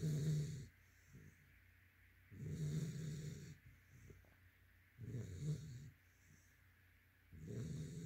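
Yellow Labrador retriever puppy snoring in its sleep. There are four snores, about one every two and a half seconds, each with a low buzzing tone, and softer breaths between them.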